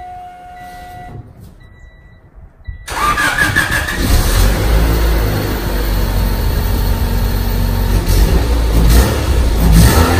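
Honda Civic EG hatchback engine cranked and started about three seconds in, after a faint steady tone, then idling through its stock exhaust. The pitch begins to rise near the end as it is revved.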